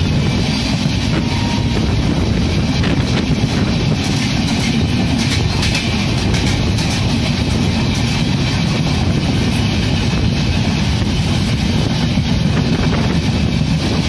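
Two express trains running side by side at speed: a steady loud rumble of steel wheels on rails with a light clickety-clack, heard from a coach window of one train as the other's coaches run alongside.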